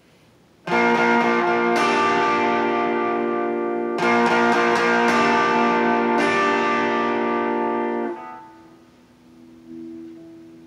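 Electric guitar through an MXR distortion pedal set to medium distortion and output with the tone nearly full, strumming a few chords that ring out and stay distinct rather than running together. The chords are re-struck several times, then muted about eight seconds in, leaving a faint held note.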